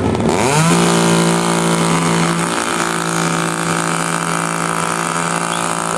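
Two-stroke chainsaw revving up in a quick rising whine under a second in, then held at a steady high-speed run.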